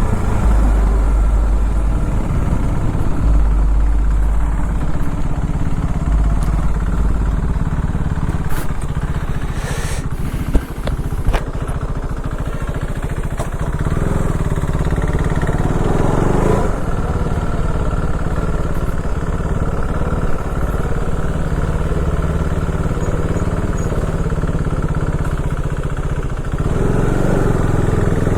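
KTM RC390's single-cylinder engine running as the bike is ridden, the engine note swelling louder around the middle and again near the end.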